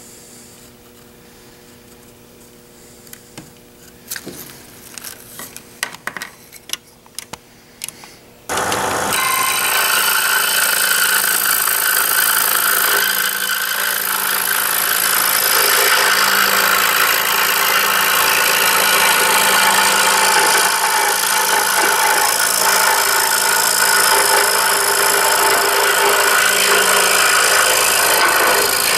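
A pencil scratches and taps faintly while tracing a template onto a wooden block. About eight seconds in, a scroll saw cuts in abruptly and runs steadily with a hum and a high whine, its blade sawing through the wooden CO2 dragster blank.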